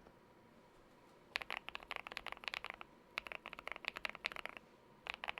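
Typing on a GMK81 mechanical keyboard with lubed Wuque Studio Light Tactile switches and Cherry-profile keycaps. A short pause, then three quick runs of keystrokes with brief breaks between them.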